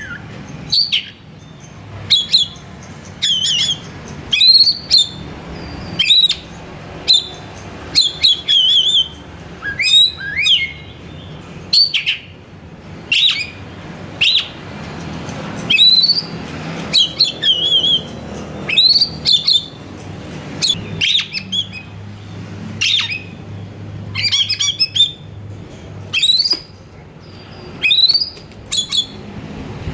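Oriental magpie-robin singing: a string of loud, sharp whistled notes and chirps that sweep up and down, coming about once a second, some broken into quick trills, over a faint low hum.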